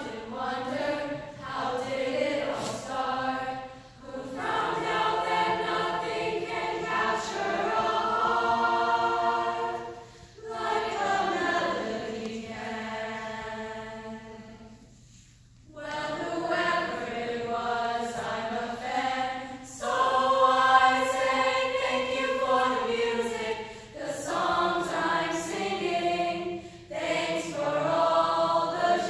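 Mixed school choir of girls' and boys' voices singing together in sustained phrases, with brief breaks between them. The longest break, almost silent, comes about fifteen seconds in.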